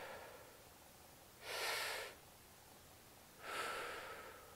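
A person breathing slowly and deeply in a belly-breathing exercise: three long rushes of air about two seconds apart.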